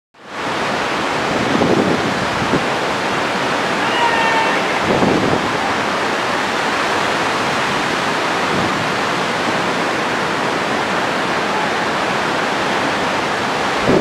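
Heavy surf of a rough sea: waves breaking and rushing onto the beach, a steady loud wash of water noise that swells slightly as the bigger waves break. A brief faint high-pitched tone sounds about four seconds in.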